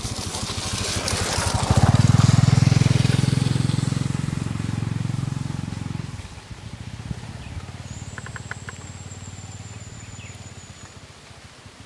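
An engine running close by, swelling louder for a few seconds and then dropping away abruptly about six seconds in. Later a thin, high, steady whistle sounds for about three seconds.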